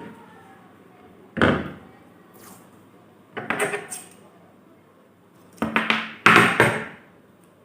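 Short handling noises, about four brief knocks and rustles with pauses between, as adhesive plaster is pulled and pressed onto the wire-to-rod joints.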